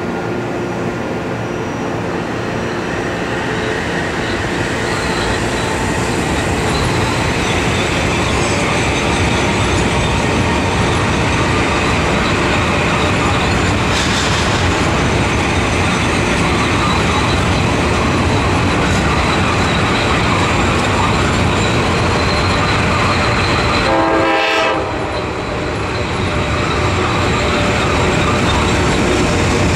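Metro-North M8 electric multiple-unit train running on the elevated track alongside: a steady rumble and clatter of steel wheels on rail that grows louder over the first several seconds. A short horn-like tone sounds briefly near the end.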